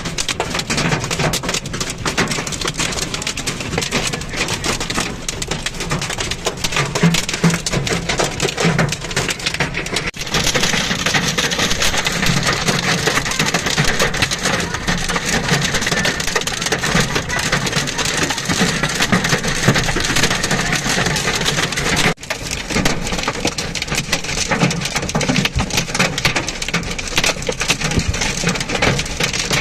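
Heavy downpour pelting hard surfaces, a dense steady crackle of impacts. It breaks off abruptly twice, about ten seconds in and again about twenty-two seconds in, and is a little brighter and hissier after the first break.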